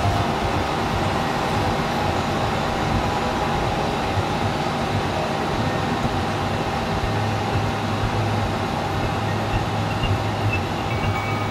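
Steady roar of a glassblowing studio's gas-fired furnace and glory hole burners. A low hum grows stronger about seven seconds in.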